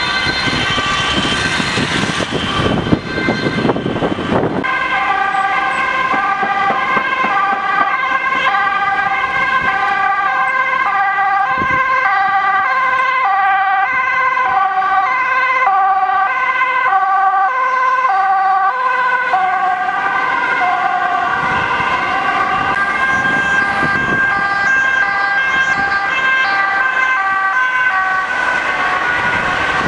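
Two-tone siren of Dutch emergency vehicles, switching steadily back and forth between two pitches, over the noise of passing traffic. In the first few seconds engine and traffic noise is loudest. Near the end the siren's pitch dips slightly as a vehicle passes close by.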